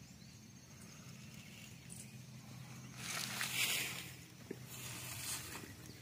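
Faint outdoor ambience with a steady low hum. A brief rustling hiss rises and fades about three seconds in.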